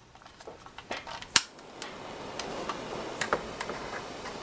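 A barbecue-lighting torch being lit and heating a brass pinion gear on a motor shaft: a few small clicks, one sharp click about one and a half seconds in, then the steady hiss of the flame with occasional ticks.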